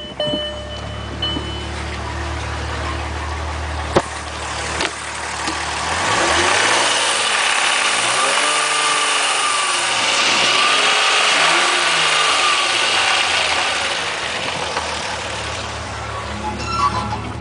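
A 2001 VW GTI's 12-valve VR6 engine idles steadily, then is revved up and let back down twice, while a broad rushing noise swells over the middle. The owner asks whether the engine's noise is lifter noise.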